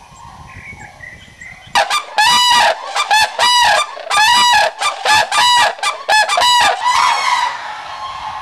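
A pair of common cranes giving their unison call: a dozen or so loud, ringing calls from the two birds together, starting about two seconds in and stopping about seven and a half seconds in. Faint small-bird song is heard before the calls.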